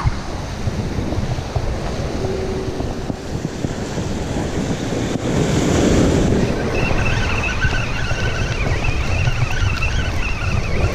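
Surf breaking against jetty rocks, heard under heavy wind buffeting the microphone. The wash swells louder about halfway through as a wave crashes in.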